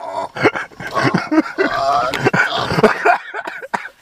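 People's voices making loud, unclear vocal sounds and cries.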